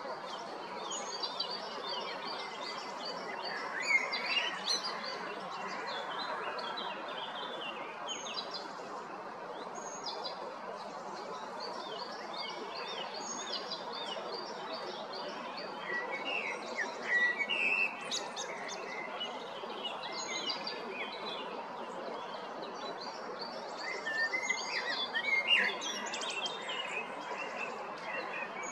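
Male common blackbird singing, several phrases a few seconds apart, over steady background noise.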